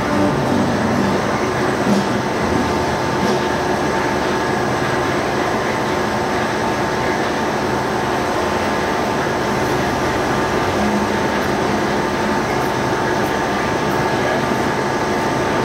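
A forklift engine and grape-processing machinery run steadily together, a constant mechanical drone with a few steady whining tones over it.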